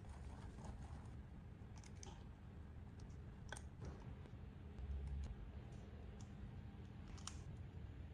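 A few faint, scattered clicks and light taps over a low steady hum.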